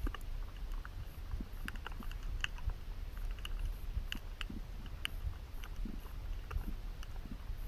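Underwater ambience during a spearfishing dive: a steady low rumble of water with many scattered sharp clicks and crackles.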